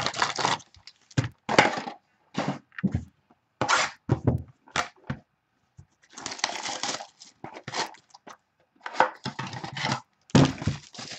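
Sealed trading-card packs and a clear plastic wrapper being handled and crumpled by hand: irregular crinkling and crackling in short bursts with brief pauses, one longer stretch midway and a loud crumple near the end.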